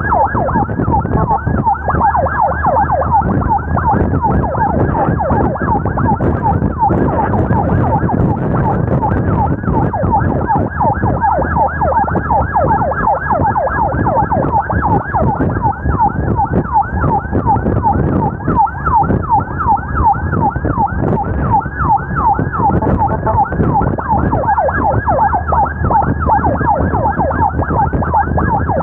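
Ambulance siren in fast yelp mode: quick, repeating sweeps in pitch, several a second, over steady road and engine noise.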